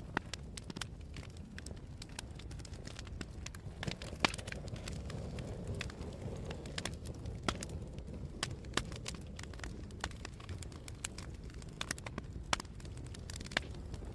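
Wood fire burning in a fireplace, crackling with frequent irregular sharp pops over a low steady rumble; the loudest pop comes about four seconds in.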